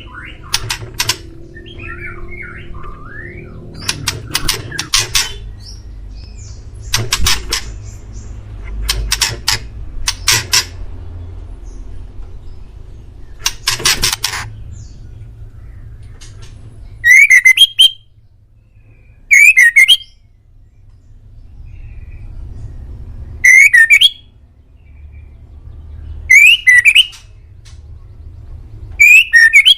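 White-rumped shama (murai batu) singing: a run of harsh, rasping notes, then five loud short phrases about every three seconds.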